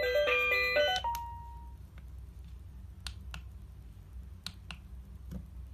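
A rabbit-shaped kids' digital alarm clock playing an electronic beeping ringtone melody, which stops abruptly about a second in as the clock is touched, giving way to a short single beep. A few sharp clicks follow in pairs from fingers tapping the clock.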